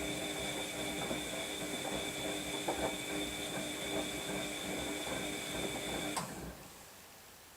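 Washing machine running, its drum motor giving a steady whine over a low, uneven churning rumble, then stopping suddenly about six seconds in.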